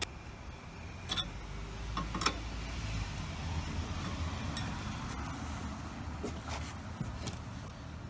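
A few short metallic clicks and knocks from a hydraulic floor jack's handle being worked and then pulled out, over a steady low rumble that swells and eases off in the first half.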